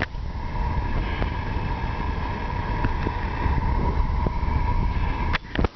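Wind rumbling on the camera microphone over a steady high whine. The sound cuts off abruptly with a few clicks near the end.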